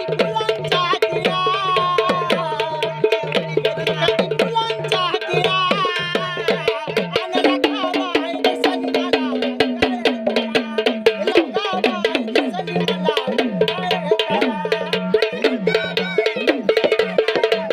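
Sambal, the Maharashtrian pair of stick-played drums, beaten in rapid strokes, with a melody carried over a steady drone.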